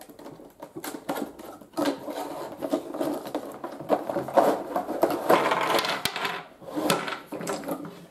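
Cardboard box handled and tipped, then wooden alphabet blocks and a wooden toy train tumbling out and clattering onto a tabletop: a dense run of wooden knocks, loudest in the middle.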